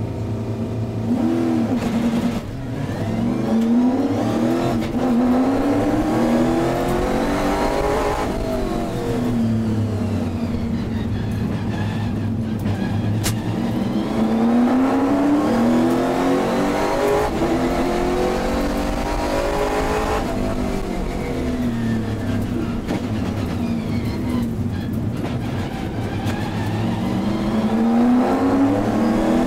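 Race car's V8 engine heard from inside the cockpit: it idles and revs at a standstill, pulls away about two seconds in, then repeatedly climbs in pitch through the gears with sharp drops at each shift, easing off twice for corners. Other race cars are heard running close by.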